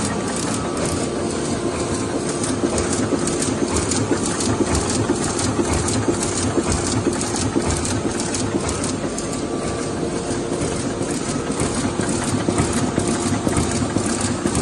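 Shinohara 75 five-colour sheetfed offset press running, a loud steady mechanical din with rapid, even clatter and a constant hum.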